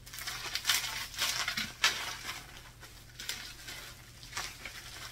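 Bubble wrap crinkling and rustling as a wrapped box is pulled out of it, in a few irregular crackles.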